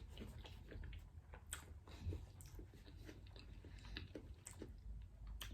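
A person quietly chewing seafood-boil food, with many small, scattered clicks from the mouth.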